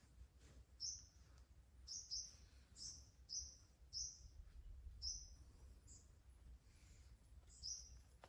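A small bird calling: short, faint, high-pitched chirps repeated about once a second, over a low steady rumble.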